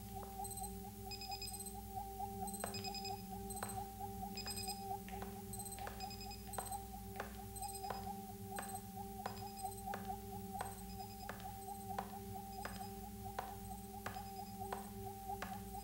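Synthesized electronic ambience: a steady low hum under a mid-pitched tone that pulses evenly, with thin ticks about twice a second and short high beeps in small groups.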